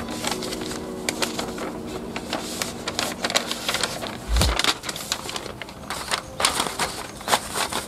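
Large paper calendar sheets rustling and crackling as they are unfolded and laid into a plastic seedling tray, in irregular sharp crackles, with a dull thump about four and a half seconds in.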